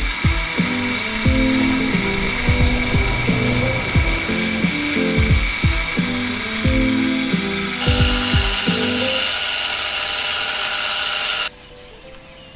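Electronic background music with a steady beat, over the steady high whine of a small lathe turning a wooden workpiece. The machine sound cuts off suddenly near the end, leaving only the music.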